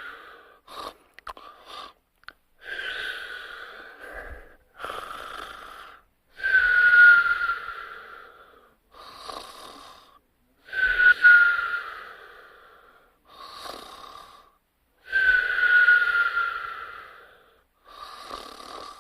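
Snoring with a whistle: about every four seconds a louder breath carries a high whistle that slides slightly down, alternating with a shorter, softer breath.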